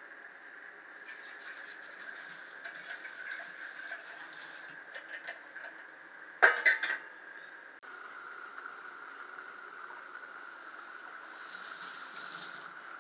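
Pot of basmati rice boiling in water: a steady hiss with stretches of crackle, and one loud, sharp clatter about six and a half seconds in.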